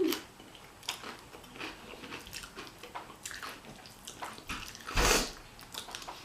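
Close-miked eating sounds: wet chewing and crunching of tortilla chips with burrito-bowl food, in quick irregular clicks. A louder, noisier burst comes about five seconds in.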